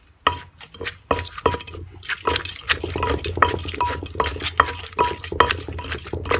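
Wooden pestle knocking and working in an earthenware mortar, about two or three strikes a second, each with a short ringing clink, as hog plum salad (tam som mak kok) is pounded and mixed.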